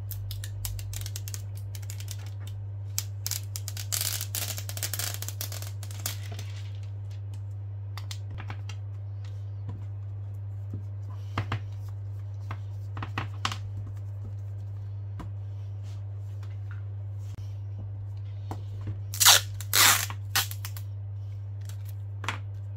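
Adhesive liner being peeled off the edge of an iPad digitizer glass, a crackling, tearing sound a few seconds in, then scattered clicks and handling sounds as the glass is pressed into the frame, with two louder brief rustles about three-quarters of the way through. A steady low hum runs underneath.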